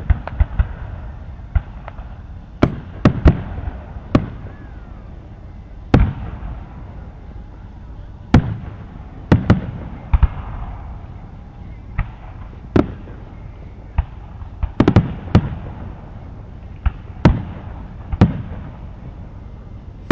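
Aerial fireworks going off: sharp bangs and booms at irregular intervals, some single and some in quick clusters of two or three, over a steady crowd murmur.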